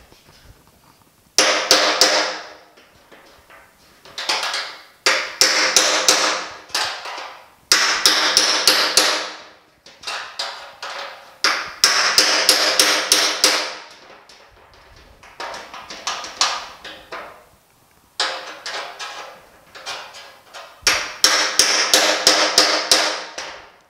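A hammer tapping a tapered length of steel rebar braced inside a 1950 Chevy truck's steel running board, to drive out a crease dent from behind. It comes in about nine short bursts of rapid metal-on-metal taps, with the steel ringing under each burst.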